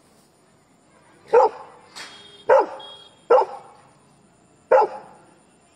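Labrador retriever barking at strangers: four loud single barks, each dropping slightly in pitch, irregularly spaced about a second apart and starting about a second in.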